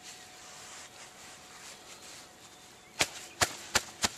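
Faint outdoor background, then near the end four sharp knocks in quick succession: a gloved hand patting the dug plug of sod back down over the filled hole.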